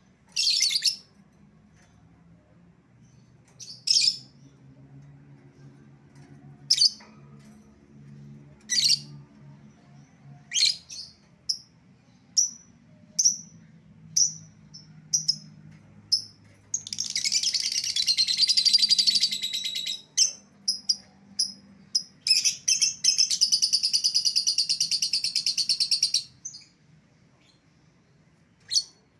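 Lovebird calling: shrill single chirps every second or two, then two long, rapid chattering trills, the drawn-out 'ngekek' chatter, each lasting a few seconds.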